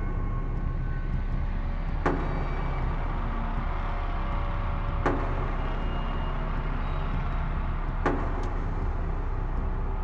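Suspense sound effect: a steady low rumbling drone with a sharp hit about every three seconds, three times.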